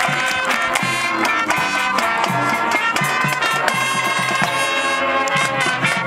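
High school marching band playing a busy passage, brass carrying the melody over percussion strikes from the front ensemble.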